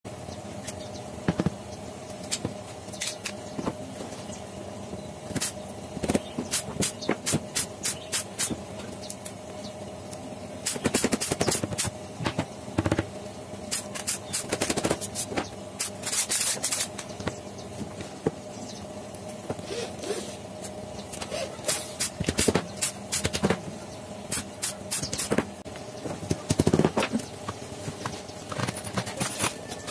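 Carpentry handling sounds: many sharp knocks and clicks, some single and some in quick runs, as drawers on metal runners are pushed and wooden parts are handled. A steady background hum runs underneath.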